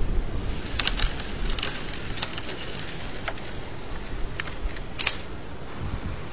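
Wind buffeting the microphone as a low rumble, with short, high chirps from small birds scattered through it: a cluster about a second in, a few more later, and another near five seconds in.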